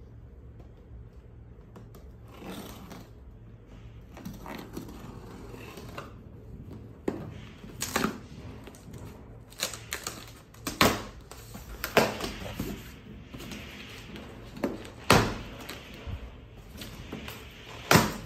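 Scissors cutting the packing tape on a large cardboard shipping carton and the carton's top flaps being pulled open. The sounds are a string of sharp rasps, snaps and flaps, sparse at first and thicker and louder in the second half.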